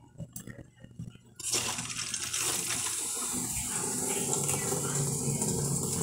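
A few clicks as the water tap is opened, then a little over a second in, a steady rush of water starts filling the automatic washing machine through its inlet hose and valve. Under it is a low hum from the energized water inlet valve. The replaced controller board has the machine in its wash fill.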